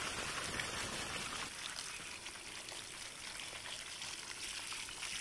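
Faint, steady hiss of trickling water.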